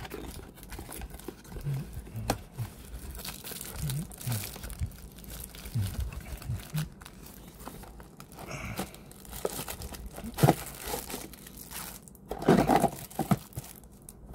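Cardboard box being opened and handled, scraping and clicking, as the plastic-bagged parts of a motorbike phone mount slide out with crinkling plastic. The loudest rustling comes near the end.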